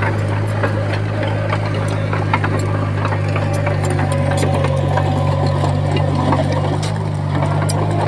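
Komatsu bulldozer's diesel engine running steadily, with scattered clanks and knocks.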